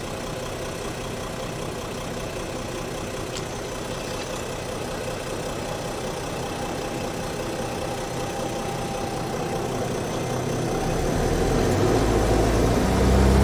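Mercedes OM642 3.0-litre V6 turbodiesel idling steadily, then about eleven seconds in rising in pitch and getting louder as the engine speed is raised for a forced diesel particulate filter regeneration.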